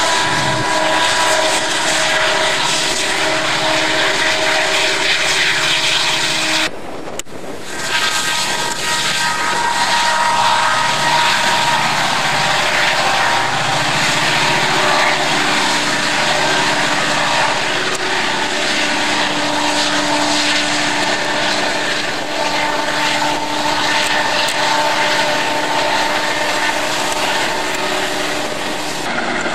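Diesel-electric freight locomotives working, a steady engine drone with held whining tones. The sound breaks off briefly about seven seconds in and resumes with different tones.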